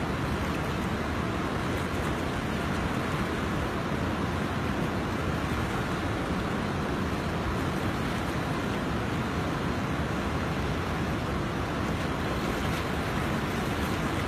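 Steady rushing of a fast-flowing, flooded river, an even noise without breaks or changes.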